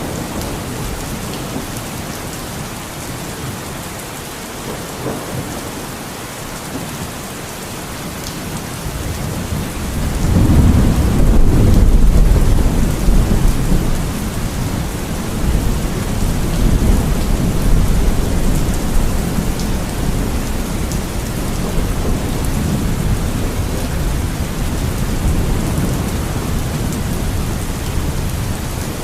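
Steady rain falling in a thunderstorm. About ten seconds in, a deep roll of thunder swells up and rumbles for several seconds before fading into a lower rumble under the rain.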